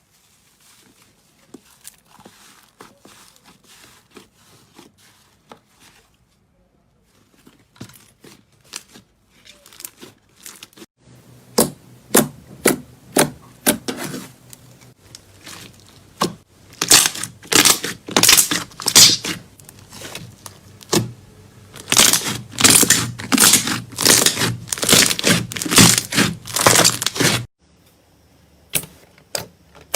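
Slime being squeezed and pressed by hand, giving sharp crackling and popping clicks. They come faint and sparse at first, then grow loud and dense in quick clusters through the second half before dropping off near the end.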